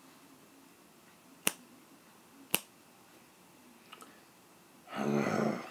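Two sharp snaps about a second apart, a couple of faint ticks, then a short vocal sound near the end.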